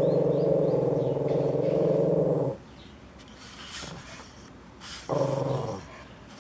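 A small dog growling in a long, steady, pulsing rumble that stops about two and a half seconds in, then growling again briefly about five seconds in.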